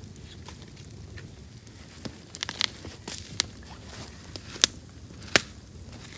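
Wood campfire crackling: scattered sharp pops and snaps over a low background, the two loudest pops in the second half.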